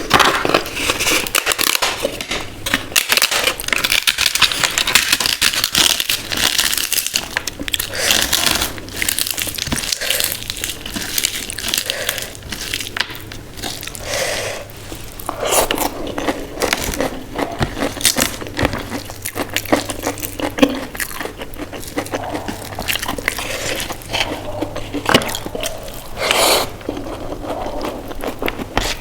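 Close-miked eating: crisp food crunched and crackling between the teeth, with softer wet chewing in between.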